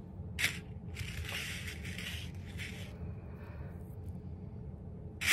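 Rustling, crinkling handling noise of something being moved about by hand, starting with a short sharp rustle about half a second in and fading out about three seconds in, leaving a low steady hum.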